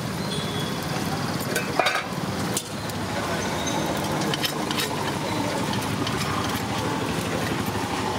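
A steady engine hum with a light noise haze, and short clinks and scrapes of a metal ladle against an iron kadai as appam is cooked.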